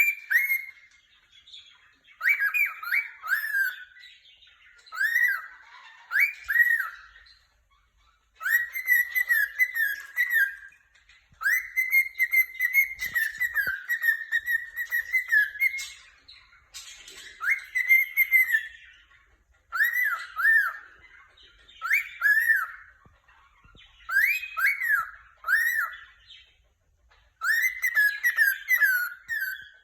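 Pet cockatiel chirping and whistling in repeated short bouts of rising and falling notes, with a couple of longer warbling phrases: happy chirping.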